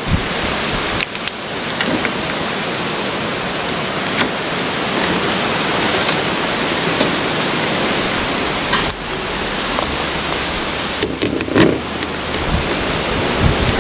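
A steady rushing hiss, with a few sharp cracks and clicks as a spiny lobster's shell is broken apart by hand, a cluster of them about eleven seconds in.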